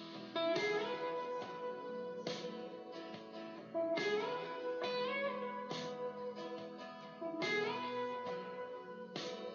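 Instrumental guitar intro of a backing track: plucked and strummed guitar chords with held notes that slide up into place about every three seconds.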